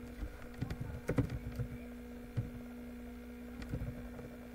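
Computer keyboard keys clicking in short irregular runs of typing: a quick flurry about a second in, a single click midway, and another few near the end.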